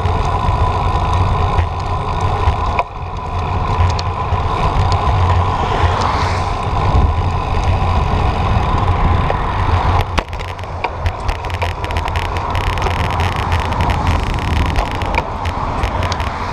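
Motor vehicle running on the road: a steady low engine drone with road and wind noise, and a scatter of short clicks in the last third.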